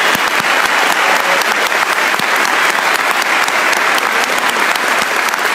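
Audience applauding steadily: a dense, even wash of many hands clapping.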